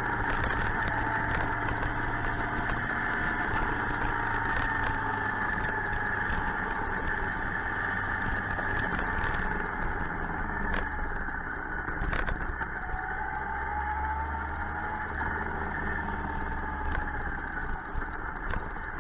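Suzuki GSX-R 1000 inline-four engine running on the move under a rush of wind noise, its pitch slowly rising and falling as the revs change.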